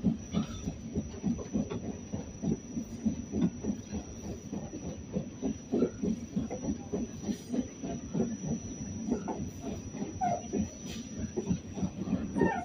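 An R46 subway car under way on the rails: a continuous rumble with an uneven clatter of wheels over the track, under a steady faint high whine.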